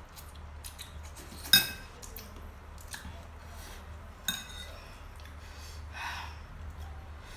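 A spoon clinks against a bowl twice, each strike ringing briefly, with a few softer scrapes between them. A low steady hum runs underneath.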